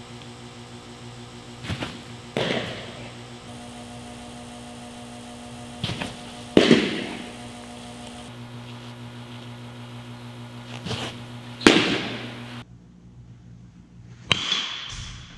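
Three pitched baseballs smacking into their target, echoing in a large hall, about every four to five seconds, each with a fainter knock just before it. After a pause, one more sharp crack near the end. A steady low hum sits underneath.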